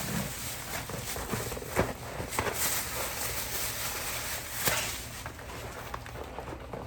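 Groceries being handled and put away in a fridge: scattered light knocks, clicks and rustles of packages and containers, with louder knocks about two seconds in and again past the middle, over a steady low hum.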